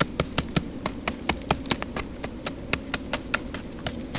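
Campfire burned down to a bed of coals, crackling with sharp, irregular snaps, about five a second.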